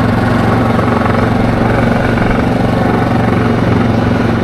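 ATV engine running steadily at a constant cruising speed, its drone holding one pitch throughout.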